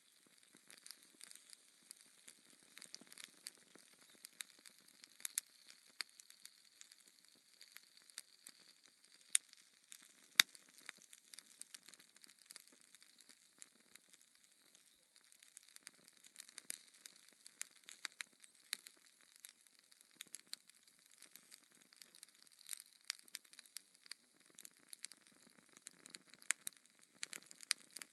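Burning logs in a fireplace crackling: a dense, irregular scatter of sharp pops and snaps over a faint hiss, with the loudest snap about ten seconds in.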